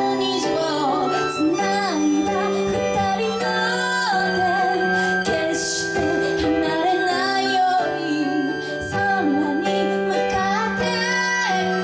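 Live pop song: a woman singing a melody over a sustained instrumental accompaniment.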